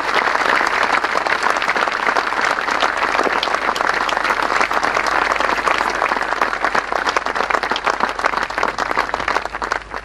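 Large seated audience applauding, a dense steady clapping of many hands.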